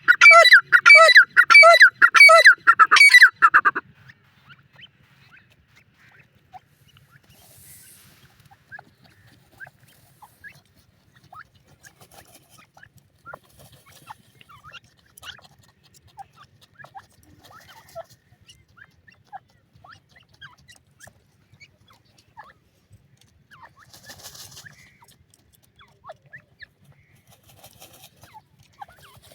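Irani teetar partridge calling loudly, a fast run of repeated harsh notes that stops about four seconds in, followed by faint, scattered short chirps.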